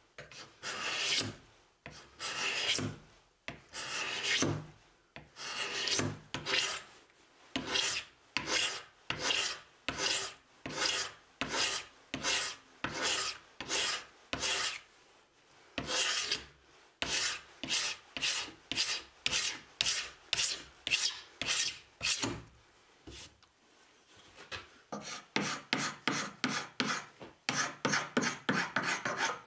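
Steel hand scraper in a wooden holder scraping apple wood with epoxy-filled cracks, in repeated rasping strokes, about one a second at first and then about two a second. After a short pause near the end come quicker, shorter strokes at about three a second.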